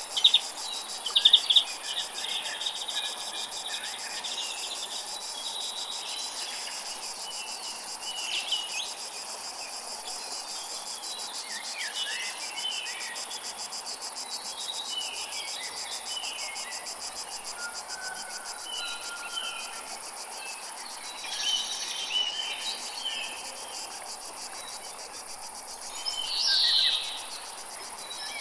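Jungle ambience: a steady insect chorus trilling in very fast, even pulses, with scattered short bird chirps over it and one louder call near the end.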